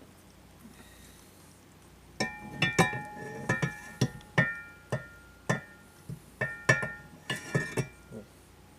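Metal-on-metal taps that ring with a bell-like tone, about a dozen uneven strikes starting about two seconds in: bearing and spacer parts being tapped onto a steel ATV axle shaft.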